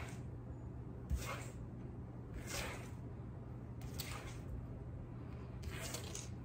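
Brief scraping and rustling as toy cockroaches are set down and slid about on a hard wood-look floor by hand, about four short scrapes, over a low steady hum.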